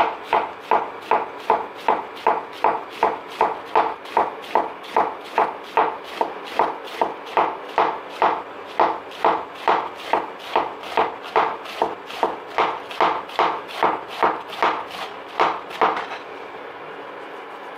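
Knife shredding a head of green cabbage on a wooden cutting board: a steady run of crisp cuts, each ending in a tap of the blade on the board, about two and a half a second. The cutting stops near the end.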